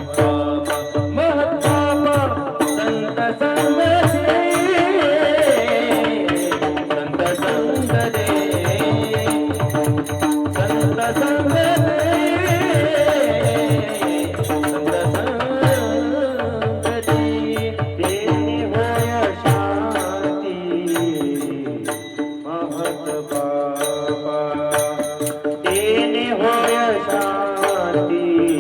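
Kirtan devotional music: a wavering melody over a steady held drone, driven by a fast, continuous drum and percussion rhythm.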